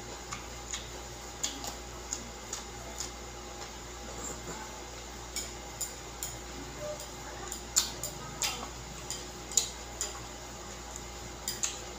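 Close-up eating sounds: crunchy chewing of raw bitter gourd and a fork clicking against a plate of noodles, in irregular sharp ticks with a few louder clinks in the second half.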